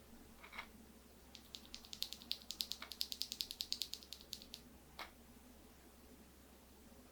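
Mechanical keyboard keys clicking in a fast, even run of about ten presses a second for some three seconds, with a single click before and after.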